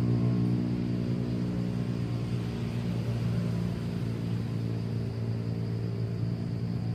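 Steady low engine hum, holding one pitch with several even overtones.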